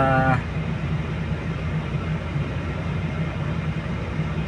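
Volvo crawler excavator's diesel engine running steadily under load, a low hum, as the machine climbs the ramps onto a lowbed trailer.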